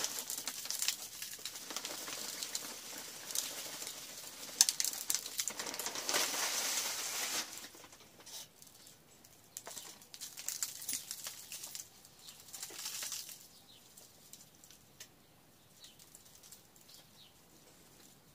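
Potting soil for cacti and succulents pouring from a crinkling bag into a plastic pot, a steady rustling hiss for about the first seven seconds. After that come softer, scattered rustles of hands pressing the soil in around the plant's stem, fading to faint small clicks.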